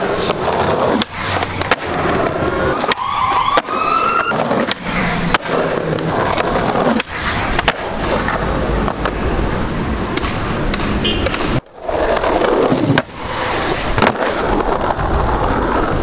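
Skateboard wheels rolling over concrete paving, a steady rumble broken by many sharp clacks of the board and wheels.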